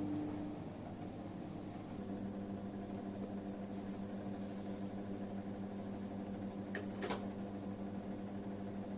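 LG microwave oven running mid-cycle with a steady hum; the hum's tone shifts lower about two seconds in. A single brief click comes near the end.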